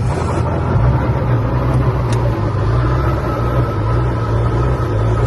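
Helicopter engine and rotor running steadily before lift-off, a loud low drone heard from inside the cabin.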